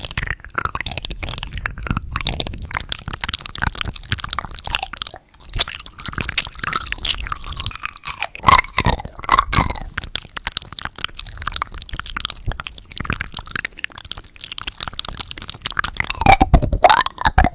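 Candy being crunched and chewed close to the microphone, a dense run of crackly bites with louder crunches a little past the middle and near the end.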